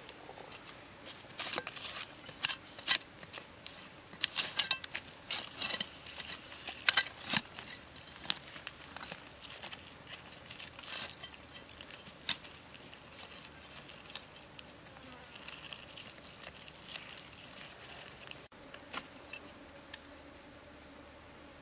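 A knife blade digging and scraping through soil and rotten wood, a run of sharp clicks and scrapes, thick in the first half and thinning out later.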